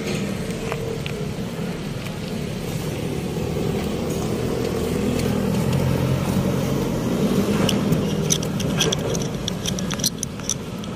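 Road traffic: motor vehicle engines running past, the hum growing louder through the middle, with a run of sharp clicks near the end.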